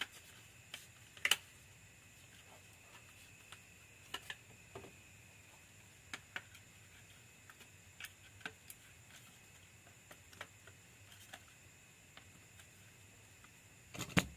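Scattered light clicks and taps of a motorcycle digital meter's plastic housing being handled and turned over on a workbench, irregular and a few seconds apart, with the sharpest knocks about a second in and near the end. A faint steady high whine runs underneath.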